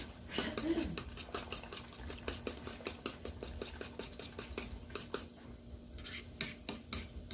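A kitchen utensil clicking rapidly and evenly against a dish, about five strokes a second, over a faint steady hum.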